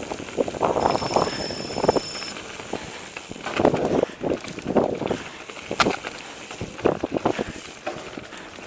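Mountain bike riding over a rough forest singletrack: tyres running over stones and roots and the bike rattling, with irregular knocks and clatters over the bumps. A short high squeal sounds about a second in.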